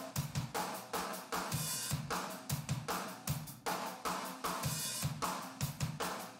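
Room-microphone recording of a rock drum kit playing a steady beat, with snare, kick and cymbals ringing in the room. A dynamic EQ is being set to duck the snare's ring, which is exciting the room.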